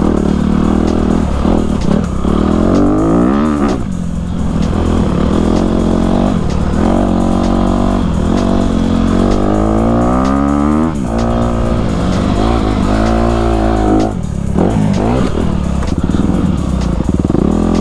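Dirt bike engine revving up and dropping back again and again as the rider works the throttle and shifts along a rough trail.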